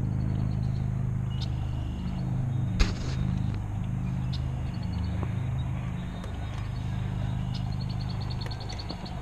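Electric trolling motor on an aluminium canoe running with a steady low hum whose pitch steps up and down as the speed changes. A single sharp knock sounds about three seconds in.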